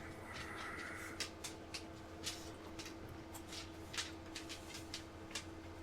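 Faint scattered light clicks and small rustles of small plastic model-kit parts being handled on a workbench, over a steady low electrical hum.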